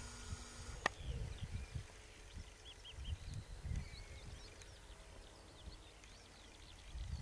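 Songbirds singing, many short high chirps, with irregular low rumbles of wind on the microphone and one sharp click a little under a second in.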